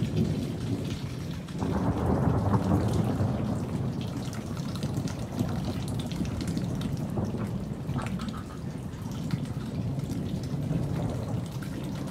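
Thunder rumbling over steady rain, with a louder roll building about two seconds in and slowly fading.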